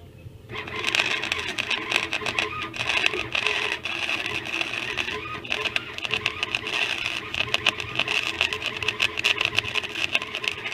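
Flux-core wire welder arc crackling and buzzing in one continuous bead, welding on thin steel. It starts suddenly about half a second in and cuts off near the end.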